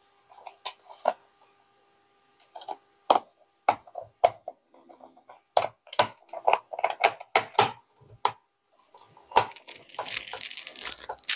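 Screwdriver driving small screws into a plastic tape-measure case: irregular clicks and taps of the driver on the screws and of hands on the plastic housing, with a couple of seconds of scratchy noise near the end.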